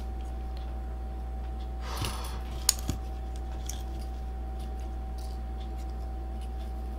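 Small plastic parts of an action camera being handled and fitted together: a brief scratchy rustle about two seconds in, then a sharp click and a softer one. A steady low hum with a faint constant whine runs underneath.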